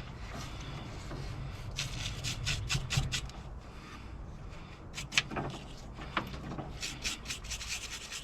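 Brush scrubbing battery terminals clean, in runs of quick rubbing strokes with short pauses between.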